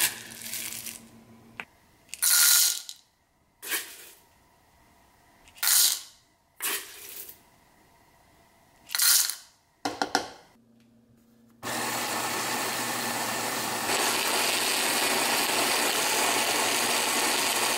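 Scoops of whole roasted coffee beans clattering into a Capresso coffee grinder's hopper, several short pours. The grinder then starts about twelve seconds in and runs steadily, grinding the beans, a little louder after a couple of seconds.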